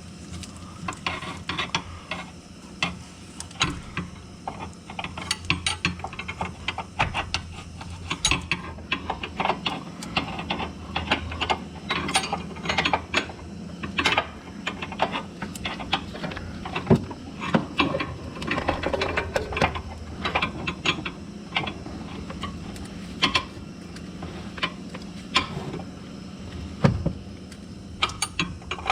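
Ratcheting wrench clicking in short irregular runs while working a rear sway bar link nut, with sharper metal taps of the tool among the clicks. A low steady hum runs underneath.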